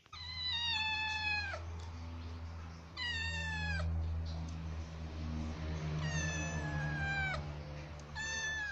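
Kitten meowing four times, high-pitched calls that each drop in pitch at the end, over a steady low hum.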